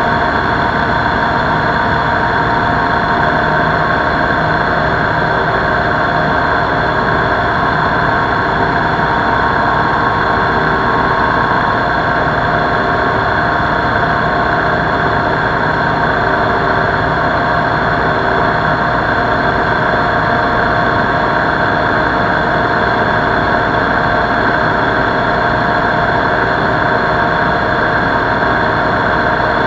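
Lil Buzzard ultralight's engine and propeller running steadily in flight, a constant drone with no change in pitch, mixed with wind rushing past the wing-mounted microphone.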